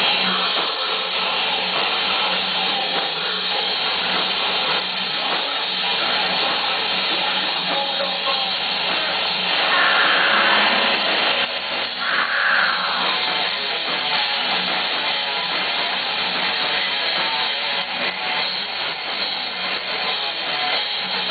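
Live rock band playing: electric guitars, bass and drum kit in a dense, continuous wall of sound.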